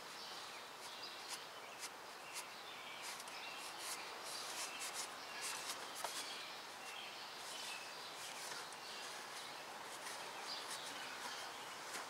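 Quiet outdoor background with birds chirping faintly, and brief soft scratchy strokes of a shop towel wiping down engine surfaces.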